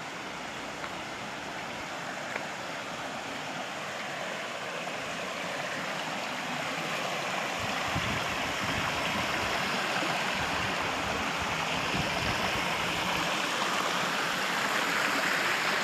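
Water running over rocks at a small waterfall: a steady rushing that grows gradually louder.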